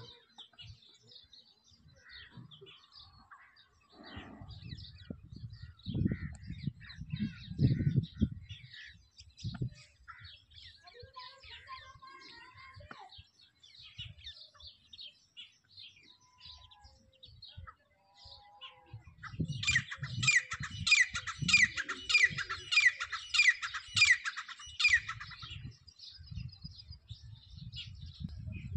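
Grey francolin (grey partridge) calling: a loud run of ringing notes, about three a second, lasting some five seconds past the middle, over smaller birds chirping. A low rumble comes and goes.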